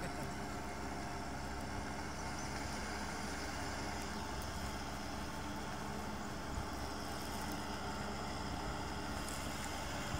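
Kubota M6040SU tractor's four-cylinder diesel engine running steadily as it cultivates a flooded, muddy paddy.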